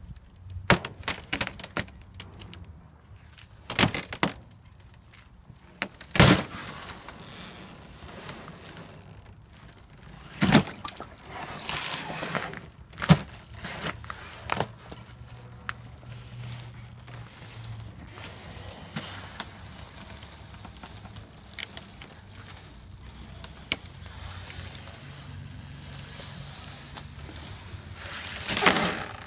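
Thin ice over shallow water being broken: sharp cracks and crunches at irregular intervals, the loudest about six and thirteen seconds in, with rough scraping stretches between them and a longer one near the end.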